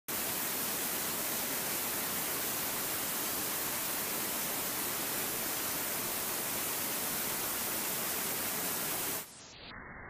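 Small waterfall splashing into a rocky pool: a steady, loud rush of water. About nine seconds in it drops abruptly, leaving a quieter, muffled rush.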